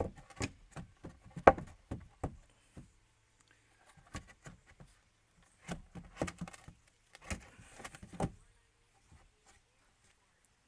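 Irregular knocks and clunks in several short clusters, the loudest about one and a half seconds in.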